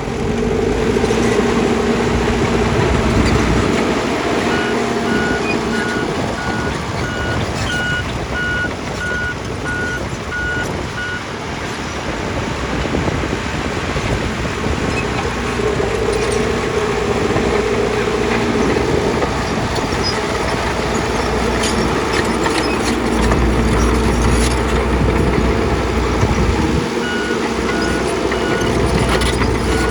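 Diesel engine of heavy earthmoving machinery running under load, its note shifting as it works. A backup alarm beeps about twice a second, from a few seconds in until about a third of the way through and again near the end, with a few knocks along the way.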